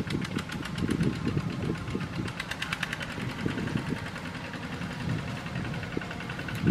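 Single-cylinder Kubota ZT-series diesel engine of a two-wheel walking tractor idling with a rapid, even knocking beat.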